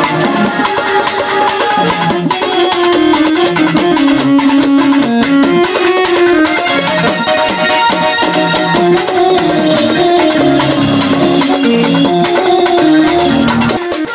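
Folk music: a double-headed barrel drum beaten with a stick and hand in fast, dense strokes, under a melody line.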